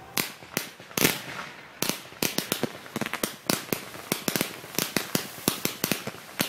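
Aerial fireworks bursting overhead: a few separate loud bangs in the first second, then from about two seconds in a fast, dense run of sharp crackling reports as glittering crackle-star shells go off together.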